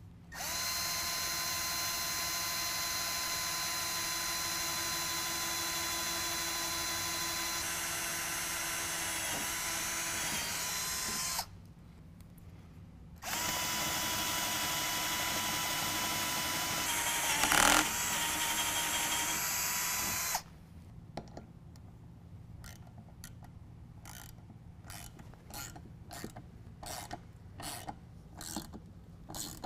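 Cordless drill with a twist bit boring through the aluminum of a snowplow blade: a steady motor whine for about eleven seconds, a short pause, then a second run of about seven seconds with a brief loud burst partway through. After the drill stops, a scatter of light clicks and taps.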